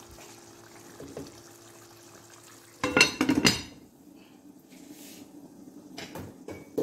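A glass lid clattering onto a metal cooking pot for about half a second, ringing as it settles on the rim, with a quieter stretch before and after and a short knock near the end.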